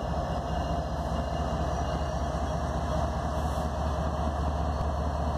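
Norfolk Southern diesel freight locomotive running with a steady low engine rumble as it approaches slowly.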